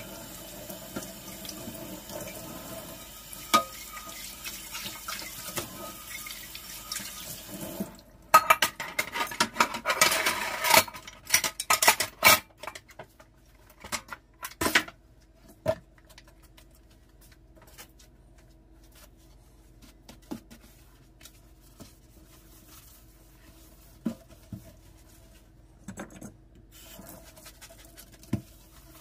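Kitchen tap running into a stainless-steel sink as a pan is rinsed; the water stops about eight seconds in. A few seconds of loud clattering and splashing follow as dishes are handled. After that come scattered light knocks of dishes and the sink being worked.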